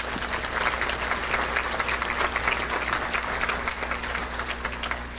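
Audience applauding: dense clapping from a large crowd that starts suddenly and thins out near the end.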